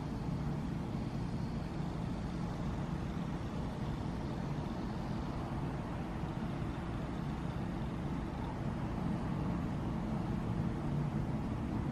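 Steady low rumble of distant road traffic, with no single vehicle standing out.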